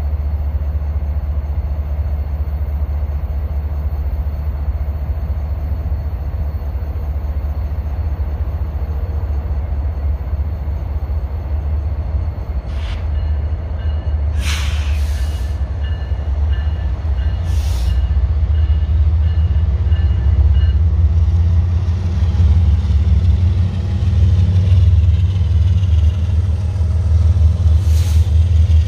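Diesel freight locomotives running slowly past, a steady low engine rumble that grows louder about two-thirds of the way in as the units draw alongside. A few brief hisses are heard over it.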